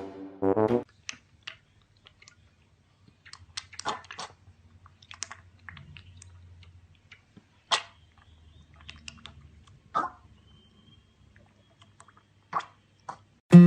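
An animal chewing and crunching, in sparse, irregular short crunches and clicks over a faint low hum. A brass tune ends about a second in.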